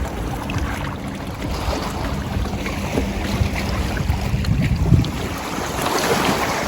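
Wind buffeting the microphone at the lakeshore, with a low steady hum through the first few seconds and scattered small knocks.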